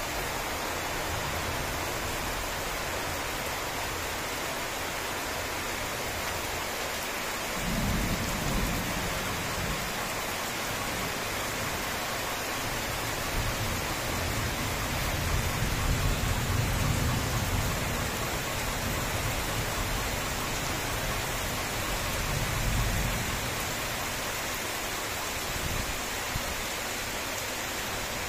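Heavy rain falling steadily, with rolling thunder rumbling low several times: once about a quarter of the way in, longest and loudest around the middle, and again about three quarters through.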